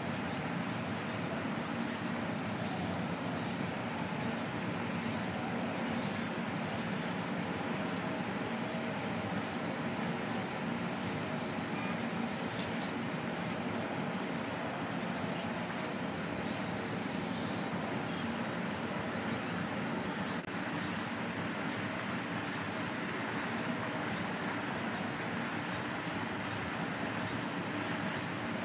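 Steady outdoor background noise, even and unbroken, with faint repeated high-pitched pulses in the second half.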